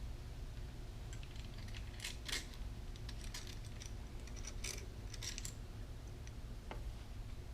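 Scattered light clicks and clatter of small metal and plastic parts being handled and fitted together, a drink-holder perch mount and its bolts, busiest in the middle and ending with a single tick.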